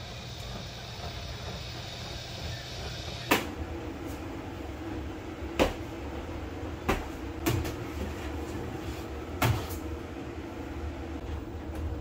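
Five sharp knocks and clatters a second or two apart, the first the loudest, as a broom is pulled out from beside the fridge and handled. Under them, the steady low hum of a front-loading washing machine turning its drum.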